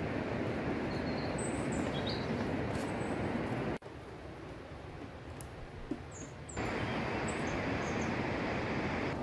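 Small birds giving short, high chirps over a steady rushing outdoor background noise. The background drops abruptly about four seconds in and comes back about three seconds later.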